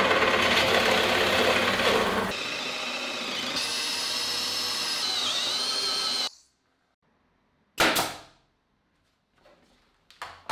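Bench drill press boring a large hole in a wooden strip, its bit jamming in the cut. It switches suddenly to a Makita cordless drill driving a large Forstner-type bit through the wood, with a steady whine that bends in pitch just before it stops abruptly. A single sharp knock follows in the quiet, about eight seconds in.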